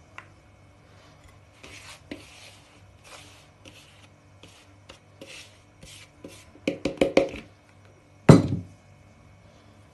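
Bran flour being poured and scraped out of a plastic bowl onto a heap of flour, heard as soft rustling hisses. About seven seconds in there is a quick run of sharp taps, then a single loud thud as the plastic bowl is set down.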